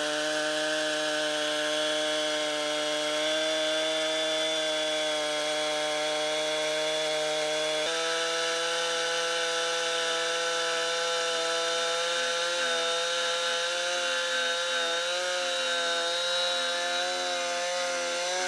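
Chainsaw in a Granberg Alaskan chainsaw mill running at full throttle, ripping lengthwise through a log to cut lumber. The engine note holds steady under the load, with a small shift in pitch about eight seconds in.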